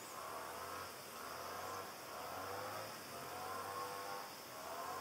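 Hornet buzzing in flight, its pitch wavering and swelling every second or so as it moves about.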